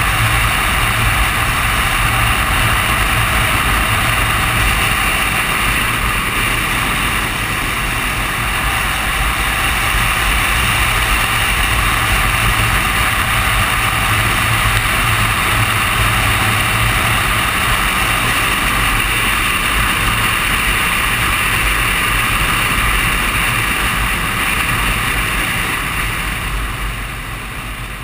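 Suzuki Katana 750's inline-four engine running steadily at highway cruising speed, mixed with a heavy rush of wind. The level eases off a little near the end.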